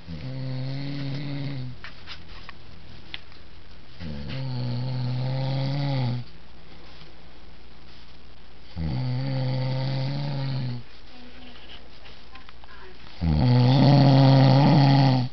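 A man snoring with his mouth shut: four pitched snores, each about two seconds long and about four seconds apart, the last the loudest.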